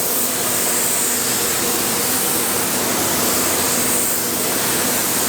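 Spray booth ventilation running: a steady, loud rush of air with a faint hum beneath it.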